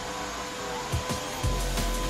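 Arçelik K 1766 1400-watt electric meat grinder running, forcing meat through the fine mincing plate: a steady motor whine with irregular low knocks as it labours on the fine plate.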